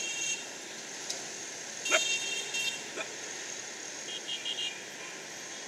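Steady outdoor background hiss with distant vehicle horns tooting briefly three times: at the start, about two seconds in, and in short choppy beeps about four seconds in.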